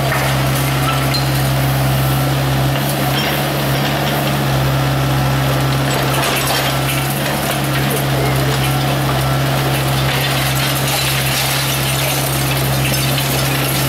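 Hydraulic excavator running at a steady low hum while an MTCR 04 demolition shear crushes reinforced concrete, with scattered clinks of breaking concrete and falling debris.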